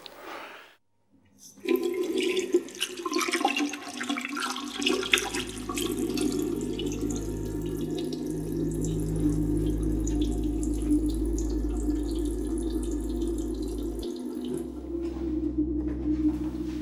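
Tap water running into a washroom sink, with a low steady hum coming in beneath it about five seconds in.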